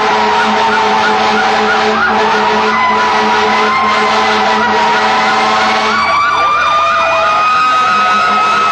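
Several fire truck sirens sounding at once: slow rising and falling wails overlapping with fast warbling yelps, over a steady low tone that drops out about six seconds in and returns near the end.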